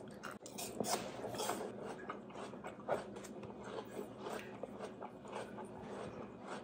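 A person eating: biting and chewing food close to the microphone, with irregular small crunches and clicks.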